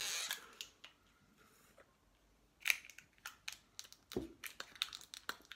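A short hiss of breath near the start, then, after a quiet moment, a run of small irregular plastic clicks and snaps as a hot-sauce bottle's cap and seal are picked at by hand.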